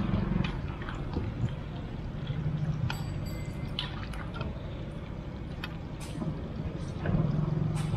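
Mini samosas frying in a wok of hot oil, a steady sizzle, with a few sharp clicks of the metal skimmer against the wok. A low steady rumble runs underneath.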